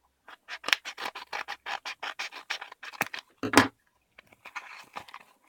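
A mailed parcel's packaging being torn open: a quick run of scratching, tearing strokes, about four or five a second, for some three seconds, then softer rustling near the end.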